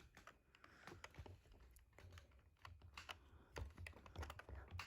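Near silence broken by faint, irregular clicks and taps, with a few soft low thumps.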